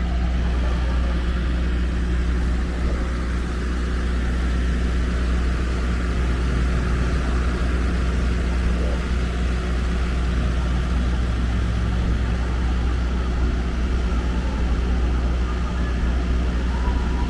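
Steady low hum of an idling motor vehicle's engine over city street noise.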